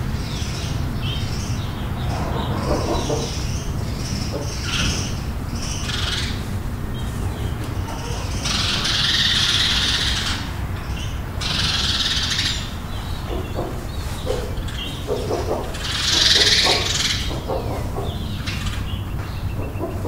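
Chickens clucking and calling in a farm barn, over a steady low hum. Three louder, high, harsh squawks stand out through the middle and latter part, one of them the loudest moment.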